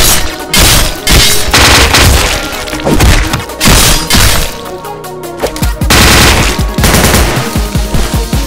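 Cartoon gunfight sound effects: volleys of rapid gunshots and impacts over loud background music.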